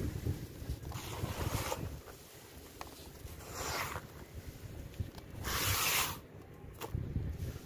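Hands squeezing and crumbling gritty clay-soil with small stones in a bucket: crunchy rustling and grains pattering down in three swells, the loudest about six seconds in, over a low rumble.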